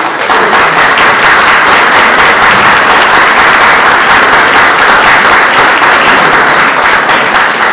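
A seated audience applauding: a dense, steady mass of hand claps that eases off slightly near the end, greeting a speaker who has just been introduced.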